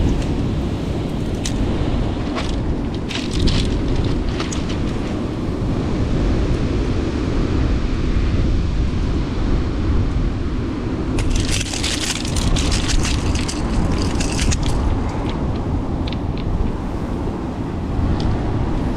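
Steady wind and surf rumble on the microphone, with bursts of crunching and clattering from rounded beach pebbles shifting as the fish is pressed and handled on them, densest from about eleven to fifteen seconds in.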